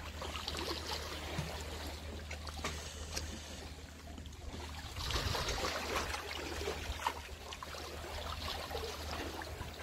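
Small sea waves lapping and splashing among concrete tetrapods at the water's edge, swelling louder about halfway through, over a steady low rumble.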